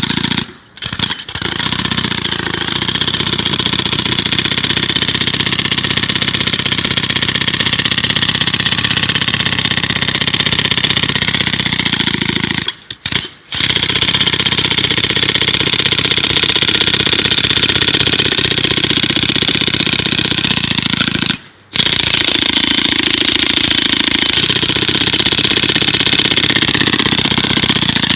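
A loud, steady, rough running noise of a small engine or motorized machine, cutting out briefly about a second in, around the middle, and again about two-thirds of the way through.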